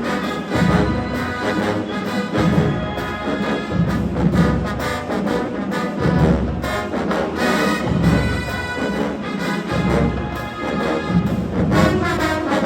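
HBCU-style marching band playing loudly, a full brass section with trombones and trumpets over a steady beat of low drums and bass.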